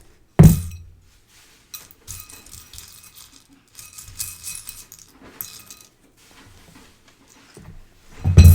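Loose plastic Lego pieces rattling and clicking as someone rummages through them while searching for parts, with a sharp knock about half a second in and another loud knock near the end.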